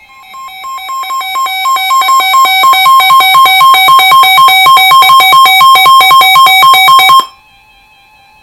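Weather radio receiver sounding its alert alarm, set off by an incoming severe thunderstorm warning. A rapid beeping that alternates two notes grows louder over the first few seconds, holds loud, and stops abruptly about seven seconds in. A faint steady tone carries on after it.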